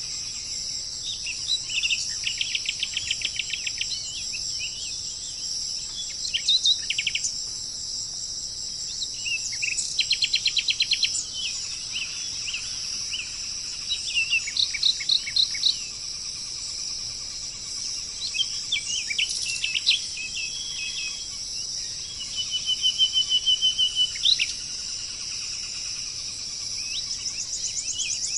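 A songbird singing short, rapid trilled phrases about every four seconds, over a steady high-pitched insect drone.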